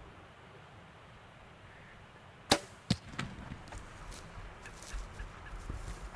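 A bow shot: a sharp snap of the bowstring about two and a half seconds in, followed less than half a second later by a second sharp crack, then light scattered clicks and rustling.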